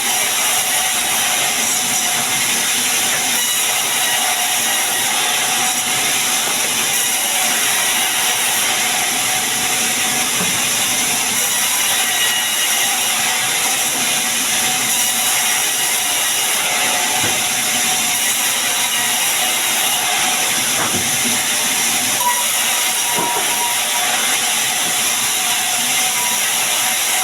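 Sawmill saw running while cutting sengon wood, a steady, loud hissing noise with faint steady tones under it.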